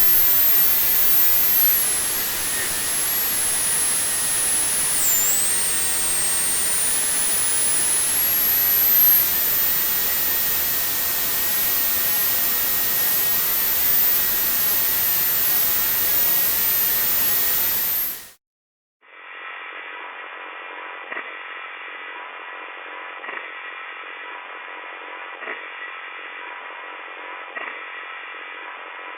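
Electrical interference sound effects: a loud static hiss with a thin, very high whistle wandering in pitch and a steady tone underneath, which cuts off after about 18 s. After a brief gap comes a quieter, muffled, narrower buzz with a few steady tones and soft ticks about every two seconds.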